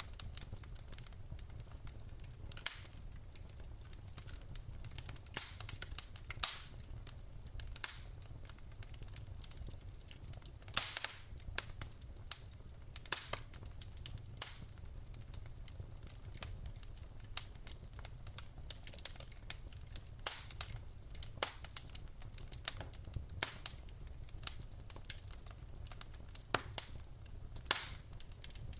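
Wood fire burning in a fireplace: logs crackling with irregular sharp pops and snaps over a low steady rumble of the flames.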